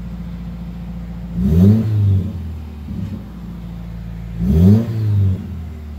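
2015 Subaru WRX's turbocharged flat-four idling, then revved twice about three seconds apart, each blip rising and dropping back to idle. The exhaust is a Turbo XS catted J-pipe, an STI mid-pipe with resonator and Nameless muffler deletes.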